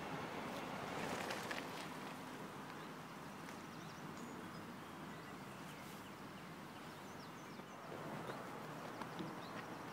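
Outdoor ambience: a steady background hiss with short, high bird chirps from about halfway through, and a brief louder noise about a second in.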